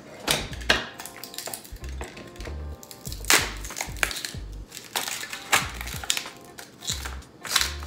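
Ice cubes clattering and cracking as they are handled by hand and added to a glass: a string of sharp clinks and knocks with some dull bumps.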